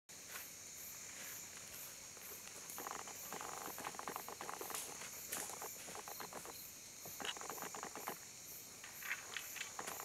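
Night insect chorus: crickets make a steady high trill, with a very high chirp repeating about twice a second above it. Scattered light scuffs and clicks come and go over it.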